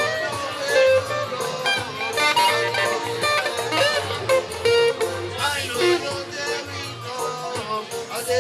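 Live band playing an instrumental passage of a song, with guitar lines prominent over a repeating bass pattern.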